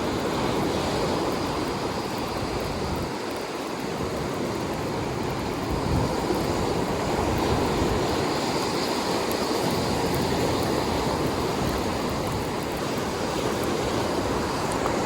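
Rough ocean surf breaking on the beach, a steady wash of noise, with wind buffeting the microphone.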